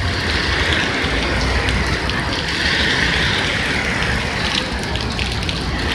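Tyres hissing on the wet road as a car drives past close by; the hiss swells and fades in the middle, over a low rumble.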